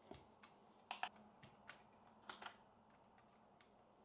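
Faint, irregular plastic clicks as keycaps are pressed onto the switches of a Wooting 60HE keyboard, about nine over four seconds, the sharpest about a second in.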